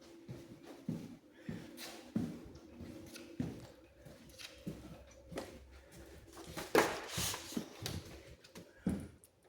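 Footsteps thudding on a mobile home's floor about once a second while walking through the rooms, with one louder rustling noise about seven seconds in.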